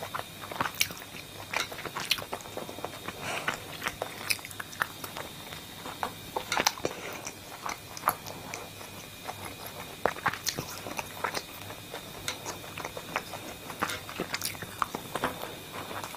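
A person chewing and biting into crisp pani puri with a full mouth: irregular sharp crunches, several a second, between chewing sounds.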